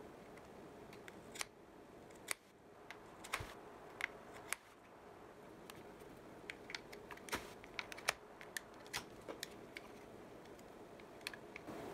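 Light scratching and scattered small, sharp clicks from a single-sided razor blade slitting the paper label along the edge of a plastic electric wine opener body, as the body is turned and handled.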